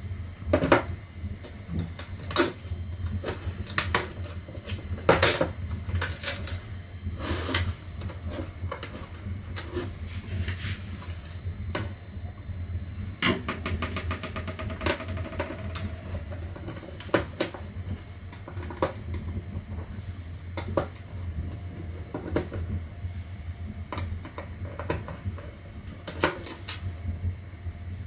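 Clicks and knocks of a Roomba's plastic chassis and screwdrivers being handled on a tabletop, over a steady low hum. About 13 seconds in comes a quick run of rapid, even ticks.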